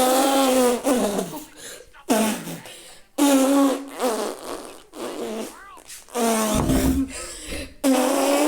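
A string of fart sounds, one after another, each starting abruptly and wavering in pitch.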